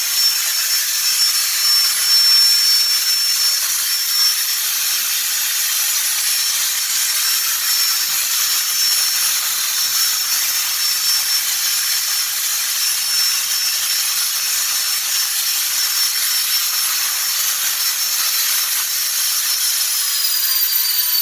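Air-cushion appliance lift running: a steady rush of air with a high whine. Near the end the whine starts falling in pitch as the lift winds down.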